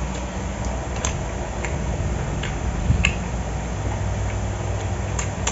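Eating sounds: about six scattered light clicks at irregular intervals over a steady low hum.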